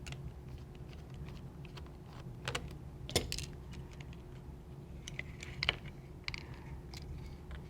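Scattered light clicks and rattles of small plastic parts being handled, as the circuit board is taken out of an opened toy remote control's casing.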